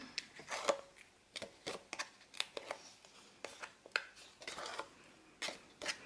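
Paper and card being handled on a tabletop: a string of short, irregular rustles and light clicks as a sheet of patterned scrapbook paper is moved and pressed.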